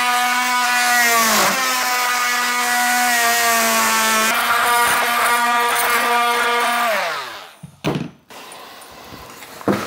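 Cordless Milwaukee oscillating multi-tool buzzing steadily as it undercuts a wooden cabinet toe kick. Its pitch sags briefly about a second and a half in as the blade bites. About seven seconds in the tool winds down with falling pitch, and a short thump follows.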